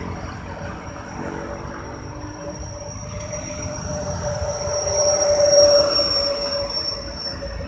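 Drone of a passing engine, swelling to its loudest about five and a half seconds in and then fading, over a low steady rumble.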